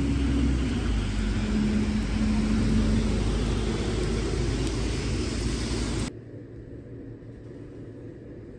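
City street traffic noise, cars running past on wet road, with a steady low rumble and a faint engine tone shifting in pitch. About six seconds in it cuts off suddenly to a much quieter low hum.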